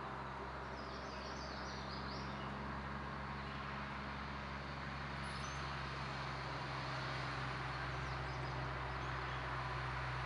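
Steady outdoor background noise with a low hum that grows slowly louder, and a few faint bird chirps about a second in.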